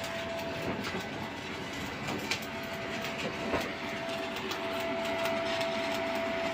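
Shielded metal arc (stick) welding arc crackling steadily with many small irregular pops, a steady tone sounding alongside.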